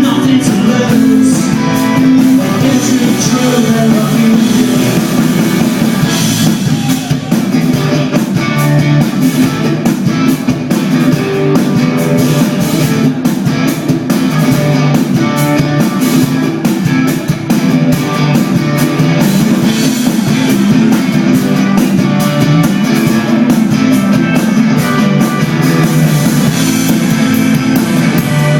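Live rock band playing with guitars and a drum kit, loud and continuous.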